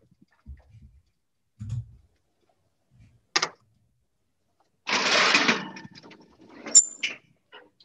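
Metal baking pan and oven rack being handled in an oven: a click, a sliding scrape about five seconds in, then a sharp metallic clank with a brief ring.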